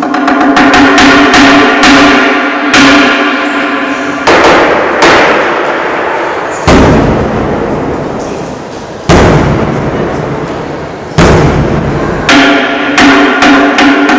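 A large mosque bedug drum and a hanging wooden kentongan being beaten as the signal before the dawn call to prayer. Quick runs of ringing, pitched knocks on the kentongan open and close the passage, with about six single deep bedug strokes between, each dying away slowly.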